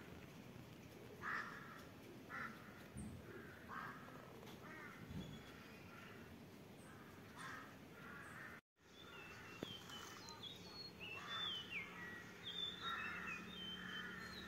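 Crows cawing again and again, faint. After a brief gap about 9 s in, another bird's short whistled notes join the caws.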